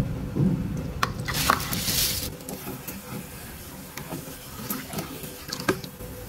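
Metal pots and utensils clinking and being handled, with a brief hissing rush about a second and a half in.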